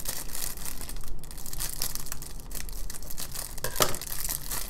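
Clear plastic wrap around a small box crinkling and crackling irregularly as it is handled and pulled loose by hand.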